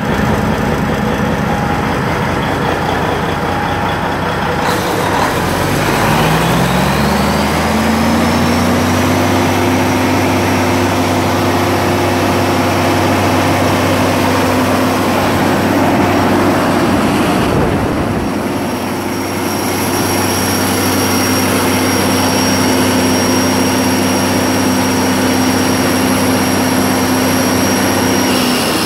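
A Detroit Diesel Series 60 14-litre inline-six turbo diesel engine runs at idle, then speeds up about five seconds in and settles at a steady higher speed. A high whine rises with it and stays on.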